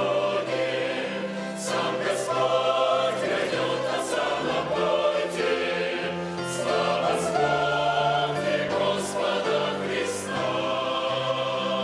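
Mixed choir of men's and women's voices singing a hymn in Russian, in sustained full chords, closing on a long held chord near the end.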